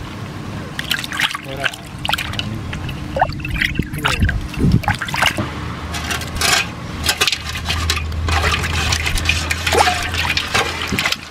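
Water sloshing, splashing and trickling as hands swish and lift skewered prawns in a pot of water, rinsing them in irregular strokes.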